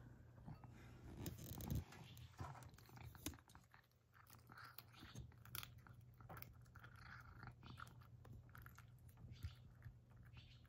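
A cat eating soft grated carrot with bonito flakes from a bowl: faint, irregular chewing and small smacking clicks of its mouth. A few louder knocks and rustles in the first couple of seconds as the bowl is set down on its tray.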